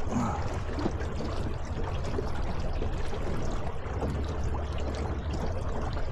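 Water rushing and trickling steadily along the hull of a small aluminum boat, over a steady low rumble.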